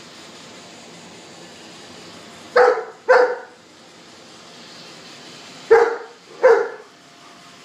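Black Labrador barking at a Roomba robot vacuum: two pairs of short, loud barks, about two and a half seconds in and again about six seconds in.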